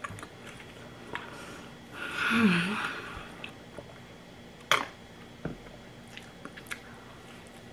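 A person chewing a mouthful of a sausage McGriddle breakfast sandwich, with small wet mouth clicks. About two seconds in comes a breathy hum through the mouthful, and a sharp click nearly five seconds in.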